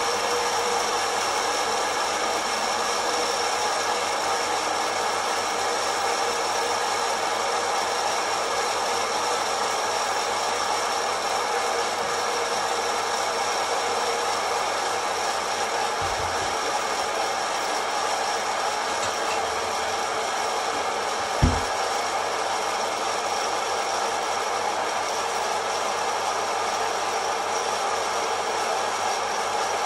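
Kaffelogic hot-air coffee roaster running, its fan blowing the beans around in the roasting chamber with a steady whooshing hum. A single brief low thump sounds about two-thirds of the way through.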